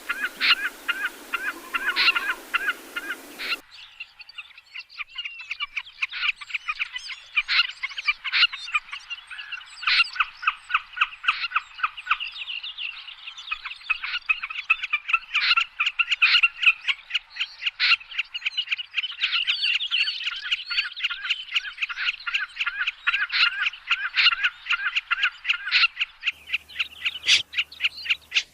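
Bird calls played as a trapping lure: fast runs of short, sharp, high calls repeated several times a second. The recording cuts abruptly to a different track about 3.5 s in, and again near the end.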